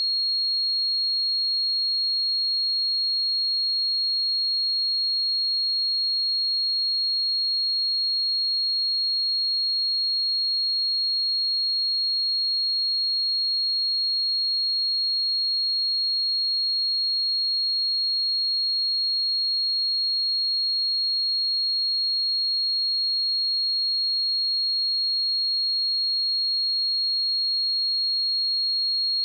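A pure 4283 Hz sine-wave test tone, one steady high-pitched note held without change.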